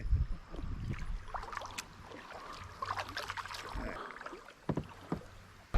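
Kayak drifting on a river: soft water lapping and trickling around the hull, with a few light knocks and clicks against the kayak.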